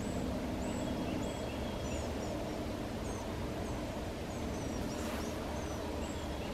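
Wild turkey gobbling at a distance over a steady outdoor background, with short high bird chirps repeating throughout.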